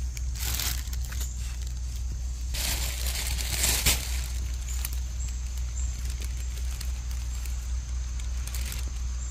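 Dry pine needles and forest litter rustling and crackling as a hand and knife work through them by a chicken fat mushroom, with a sharp snap about four seconds in. A steady low rumble sits underneath.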